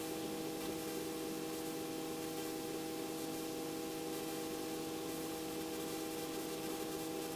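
Steady drone of a Robinson R44 helicopter, a constant hum of several even tones over a smooth hiss, heard low and muffled with no change in pitch.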